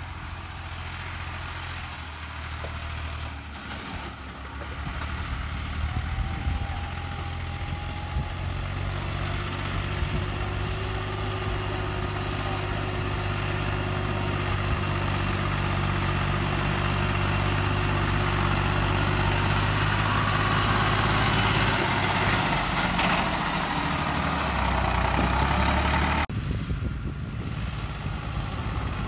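Massey Ferguson 260 Turbo tractor's diesel engine running steadily under load as it hauls a heavily loaded trolley, growing louder as it comes closer. Near the end the sound abruptly turns duller.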